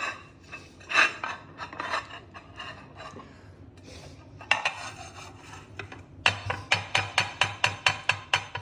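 Ceramic bowl clinking and scraping on a square serving platter as it is turned upside down to unmould packed rice. Near the end it is tapped quickly, about a dozen sharp taps at roughly five a second, to loosen the rice.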